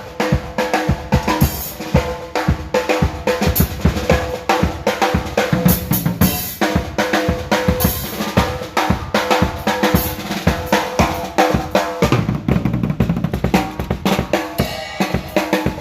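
Drum kit played in a busy, continuous groove, with kick drum and snare strikes coming several times a second.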